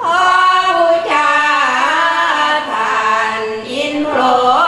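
Women singing a Thai Buddhist sorapan verse in the Isan melody: long held phrases that slide up and down in pitch, starting right after a short pause.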